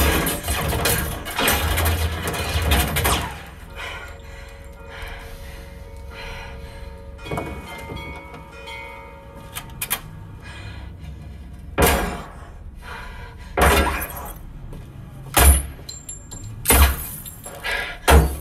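Action-film soundtrack played over home-cinema loudspeakers in a room. It opens with a loud, dense burst of gunfire and bullets cracking against a car's armoured glass, then drops to quieter music with a held tone. Five heavy single impacts follow, about one and a half seconds apart.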